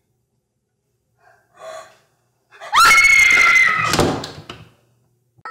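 A woman's short gasping breaths, then a loud scream a little under three seconds in that leaps up in pitch at the onset and holds for about a second and a half before breaking off.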